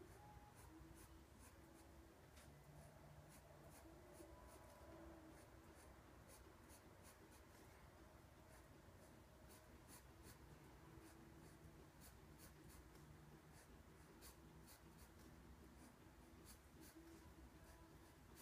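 Faint scratching of a pencil on sketchbook paper, a quick, irregular series of short strokes as feathers are sketched.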